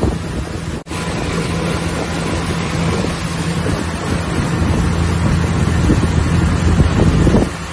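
Motorboat engine running at a steady pitch, with wind buffeting the microphone. The sound cuts out for an instant about a second in.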